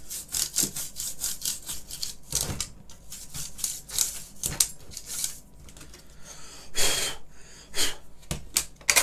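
Toothbrush scrubbing the switch plate of a computer keyboard with its keycaps removed. The strokes rasp at about three or four a second for the first two and a half seconds, then come slower and more scattered.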